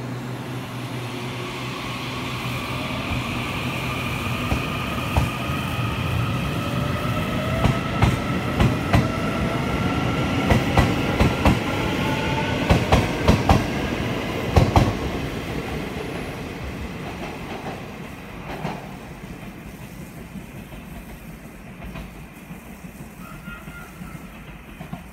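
Taiwan Railways EMU800 electric multiple unit pulling out and gathering speed. Its traction motors whine in several tones that rise slowly in pitch, and the wheels clack over rail joints in a quick run of clicks near the middle. The sound then fades away as the train leaves.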